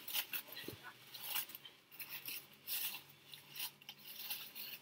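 Packaging on a small item being worked open by hand: an irregular run of short, crisp rustles and snaps.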